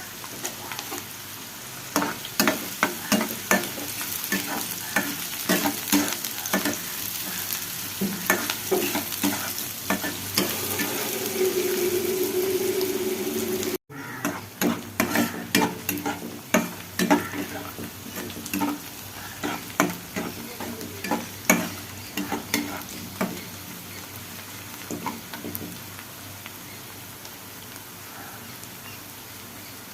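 Chopped onions and curry leaves frying in hot oil in a pan, sizzling steadily, while a spatula stirs them and knocks against the pan in quick, repeated clicks. The stirring thins out over the last few seconds, leaving mostly the sizzle.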